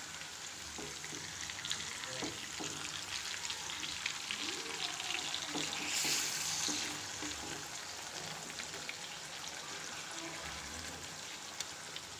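Pieces of white pomfret shallow-frying in oil in a non-stick pan, sizzling steadily. A steel spoon stirs and turns them with light scrapes and taps. The sizzle swells briefly about six seconds in, as pieces are turned.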